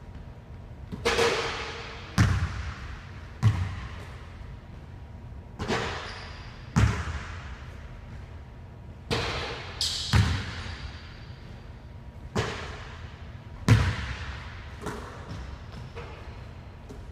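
A basketball bouncing on a hardwood gym floor and striking the rim and backboard during dunk practice: about a dozen sharp thuds at irregular intervals of one to two seconds, each echoing in the large empty gym, a few with a short metallic ring.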